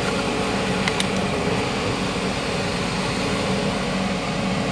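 Newly installed dual auxiliary electric condenser fans running steadily behind a Suzuki DA17's grille, a constant rush of air with a steady hum, pulling air inward through the condenser. A brief click sounds about a second in.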